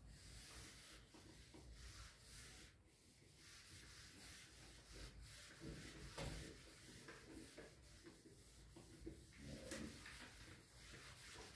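Faint rubbing of a handheld eraser wiped across a whiteboard in repeated strokes.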